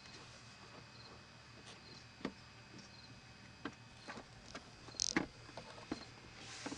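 Light, scattered clicks and taps of a plastic car interior trim panel being pressed and snapped into place on a window pillar, the loudest about five seconds in.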